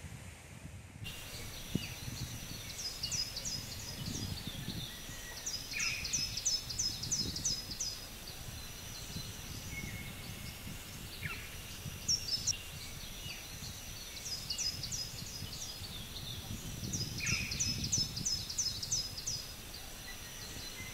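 Birds calling in garden trees: several trains of quick, high repeated chirps, with single lower falling calls between them, over an uneven low rumbling noise.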